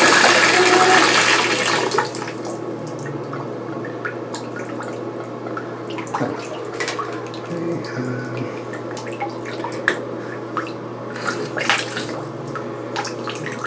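Water from a bathtub spout running into the tub, shut off at the Moen shower valve about two seconds in; the new cartridge stops the flow. After that there are only scattered small drips and clicks over a steady low hum.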